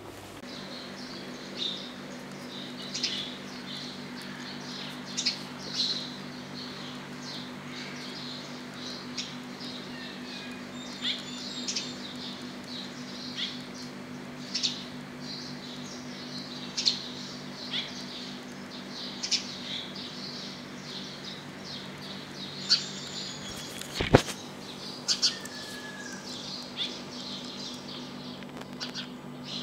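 Small birds chirping in short, scattered calls over a steady low hum, with a sharp click near the end.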